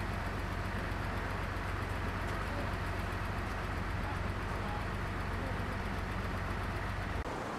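Steady outdoor background noise with a low, even hum that does not change.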